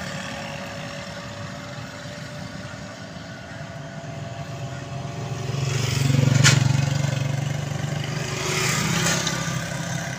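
Suzuki Khyber car engine running, its whining gearbox just packed with bananas to quieten the gear noise. It grows louder for a couple of seconds about six seconds in, with a sharp click at its loudest, then settles back.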